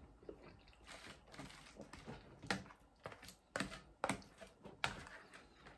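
Metal fork tapping and scraping in a foil tray of pasta bake: scattered small clicks, with four louder sharp clicks in the second half.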